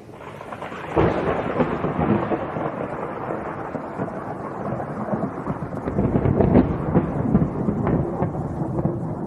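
Thunder sound effect: a crackling thunderclap about a second in, then continuous rumbling and crackling.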